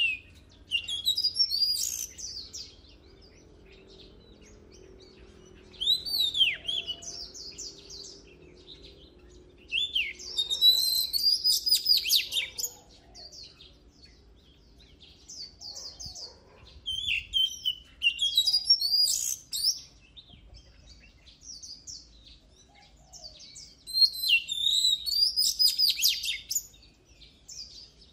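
Oriental magpie-robin singing in about five bouts of rapid, varied whistled phrases, with pauses of a few seconds between them.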